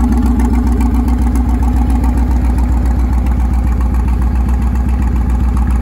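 5.2-litre V8, swapped from a Jeep Cherokee into a custom Toyota Land Cruiser BJ42, idling steadily with a loud, even low pulse.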